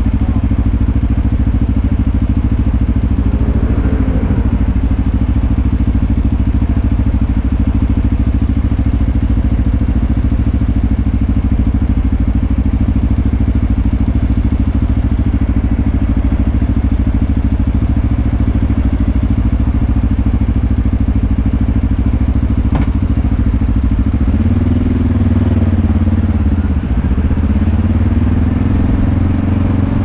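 Motorcycle engine idling steadily, with a single sharp click shortly before it revs up and pulls away. Six seconds from the end the revs climb, drop briefly at a gear change and climb again.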